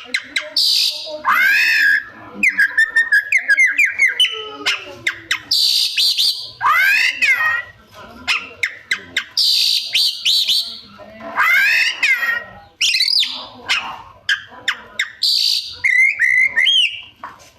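Oriental magpie-robin (kacer) singing a loud, varied song of arching whistled notes, quick trills and harsh scratchy bursts. It is a display of its mimicked phrases (isian), some of them close to a cat's meow.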